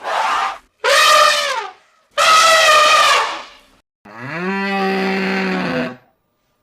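Three short, high animal calls falling in pitch, then a cow's long moo that rises at the start and holds steady for about two seconds.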